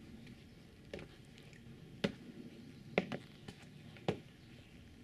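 Slow ceremonial marching steps of an honour guard, boots striking brick paving, about one sharp step a second.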